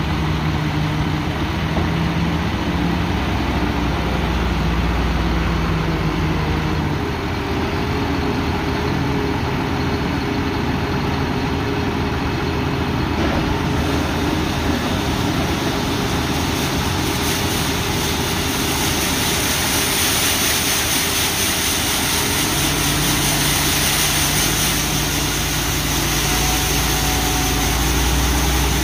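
John Deere T670i combine running steadily with a constant mechanical drone. Its low engine note shifts about seven seconds in and settles back near the end, and a hiss swells in the middle.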